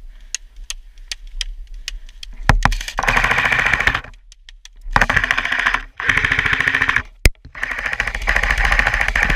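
Airsoft guns firing: a few scattered single shots, then long full-auto bursts of rapid clicking, four in a row, with one sharp single crack between the last two.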